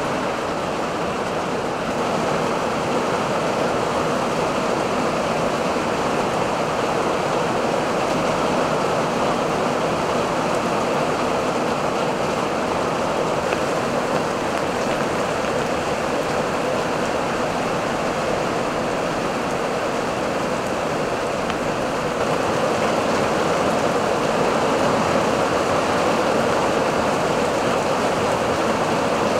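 Torrential thunderstorm rain pouring down in a steady, dense hiss, growing a little louder about three-quarters of the way through.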